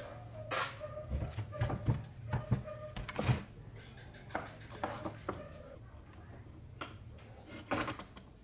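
Hands working the curved metal front handle off an old electric chainsaw's housing: a run of metal clicks, knocks and clatter, busiest in the first three and a half seconds, then a few scattered knocks as the handle is set down on the wooden bench.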